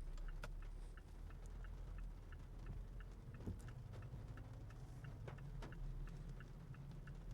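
Car turn-signal indicator clicking steadily, about two and a half clicks a second, faint over the low rumble of the car's cabin.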